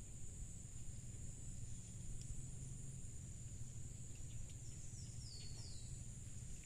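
Steady high-pitched drone of insects in the surrounding forest over a low steady rumble, with a few short falling bird chirps about five seconds in.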